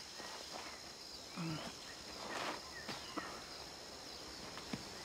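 A woman crying quietly, with a short sob about a second and a half in and a sniffling breath a second later, over a steady high buzz of insects.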